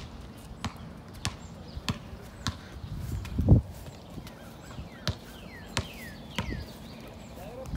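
Sharp taps or knocks repeating evenly, about three every two seconds, with one louder thud about three and a half seconds in and a few faint falling chirps later on.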